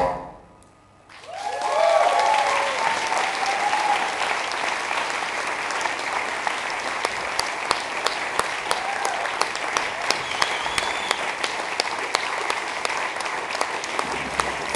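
Rock music cuts off, and after about a second of quiet an audience starts applauding, with cheers and whoops at first, then steady clapping that keeps going.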